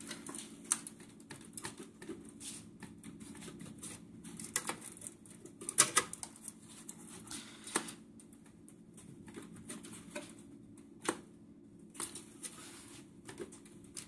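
Plastic wiring-harness connectors being unplugged by hand from a car's ECU: irregular small clicks and rattles, the loudest about six seconds in, over a steady low hum.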